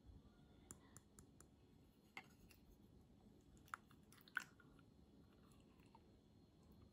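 Spoon clicking and tapping against a glass cup while scooping soft cider jelly: a few scattered, faint clicks, the two loudest a little under four seconds in and just after four seconds. Otherwise near silence.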